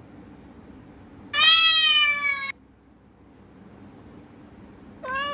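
Cat meowing: one long meow about a second and a half in, sliding slightly down in pitch, then a shorter, quieter meow beginning near the end.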